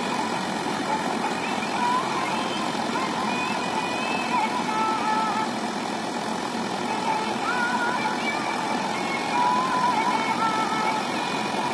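Tractor-mounted combine harvester running steadily while cutting wheat: a dense, even mechanical din of the engine and threshing machinery, with faint wavering tones over it.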